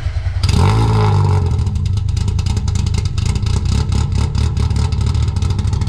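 Prepared Peugeot 106 S16's 16-valve four-cylinder engine running loud on a chassis dyno. It starts abruptly, rises in pitch about half a second in, then holds steady.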